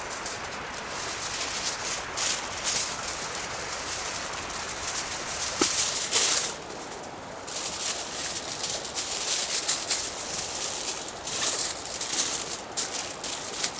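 Aluminium foil crinkling and rustling in irregular bursts as a sheet is torn from the roll and handled to wrap a sweet potato, with a short pause about halfway through.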